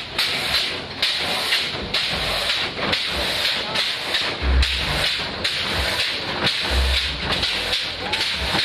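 Steady hissing noise from a custom mini-truck hopping its suspension, broken by low thumps about four and a half and seven seconds in as the truck comes down.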